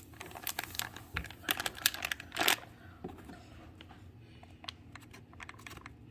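Irregular light clicks and taps from a cornstarch container being handled, fast in the first couple of seconds and then scattered, with a short louder rustle about two and a half seconds in.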